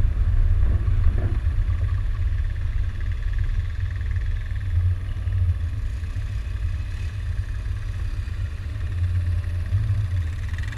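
Land Rover Discovery 2's V8 running as the truck drives slowly along a dirt trail, a steady low rumble of engine and road noise.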